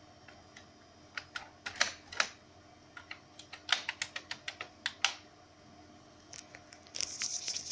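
Computer keyboard keys pressed one at a time, a scattered run of a dozen or so separate key clicks over about four seconds during a BIOS keyboard test, followed by a short rustle near the end.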